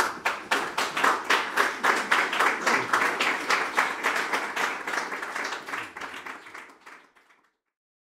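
Audience applauding, a dense run of many hands clapping that dies away near the end.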